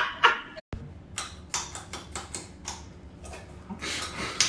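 A person chewing raw carrot: a quick, irregular run of crisp crunches, about three or four a second, over a faint low hum.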